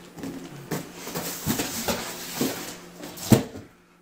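Large cardboard box holding a computer case being flipped over and handled: rustling with a series of knocks, the loudest thump a little over three seconds in.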